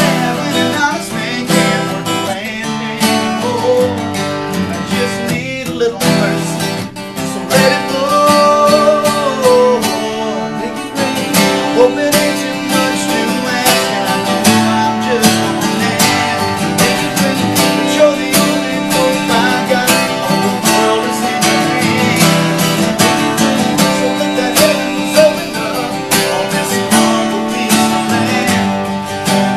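Country song: strummed acoustic guitar with a singer.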